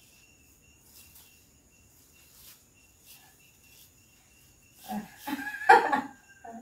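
Mostly quiet room with a faint steady high-pitched whine and a few soft rustles. About five seconds in, a short burst of a person's voice, the loudest sound, with another brief sound of voice near the end.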